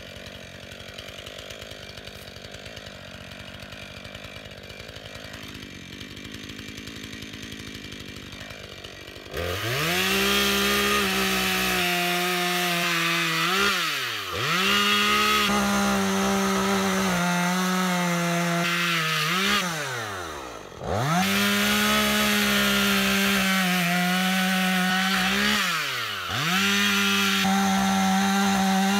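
Two-stroke chainsaw idling for about nine seconds, then opened up to full throttle and cutting through a log. Its engine note drops and climbs back three times as the throttle is eased off and opened again.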